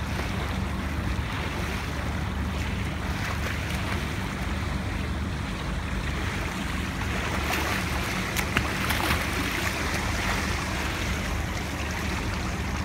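Pool water splashing and sloshing as a swimmer strokes through it, louder from about seven and a half to ten and a half seconds in, over a steady low rumble.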